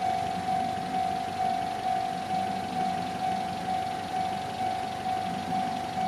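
Japanese railway level-crossing warning bell ringing, a steady single-pitched "kan-kan" at about two strikes a second, with a waiting vehicle's engine idling underneath.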